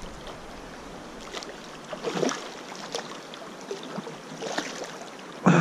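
Steady rush of river water with a few short splashes from a hooked trout thrashing at the surface, the clearest about two seconds in.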